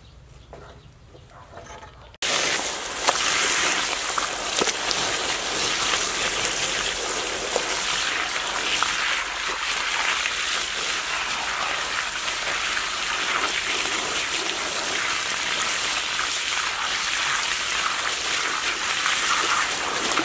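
Water boiling hard in a pot, a steady bubbling hiss with small pops that starts abruptly about two seconds in.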